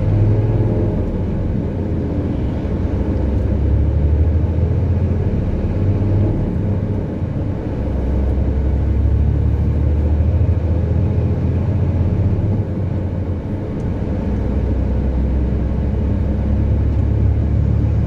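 Motor vehicle driving along a paved road: a steady low engine and tyre rumble that swells and eases slightly.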